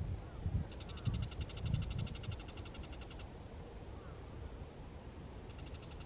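Bull-headed shrike calling: a fast, high-pitched rattling chatter of about two and a half seconds, then a short burst of the same near the end.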